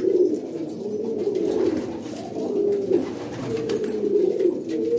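Domestic pigeons cooing in a loft, a low overlapping coo that rises and falls without a break.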